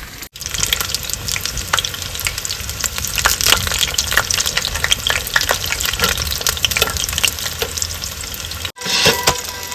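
Battered fish pakoras deep-frying in hot oil: a steady sizzle full of fine crackling pops, with a low rumble underneath.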